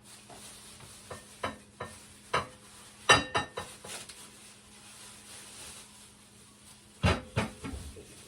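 Kitchen clatter of dishes and utensils being handled: scattered clinks and knocks, with a loud cluster about three seconds in and another about seven seconds in.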